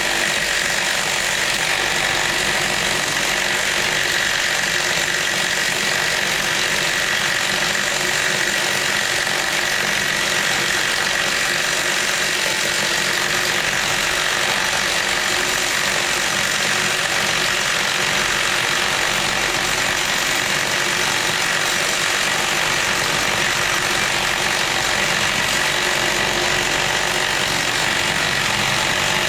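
An engine running steadily at idle, unchanging throughout.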